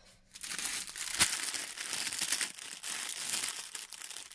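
Squishy toys' packaging crinkling and rustling as they are handled, with one sharp click a little after a second in.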